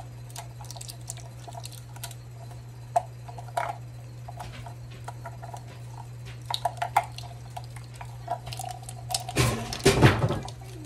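Kitchen utensils being handled at a counter: scattered light clicks and clinks, then a louder clatter about nine seconds in, over a steady low hum.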